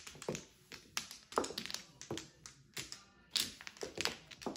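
Mahjong tiles clicking and clacking on the table in quick, irregular taps as they are drawn and discarded during play.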